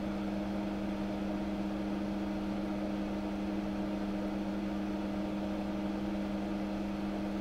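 Steady low machine hum with a few held tones and faint hiss, unchanging throughout.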